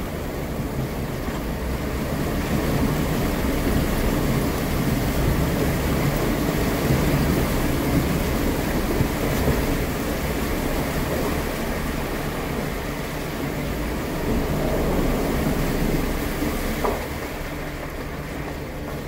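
Jeep Wrangler driving slowly through a brick-lined railway tunnel: its engine running steadily, with tyre noise over the wet, puddled floor.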